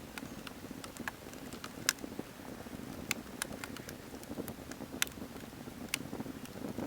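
Wood fire crackling: irregular sharp pops and snaps, a few louder than the rest, over a low steady rush.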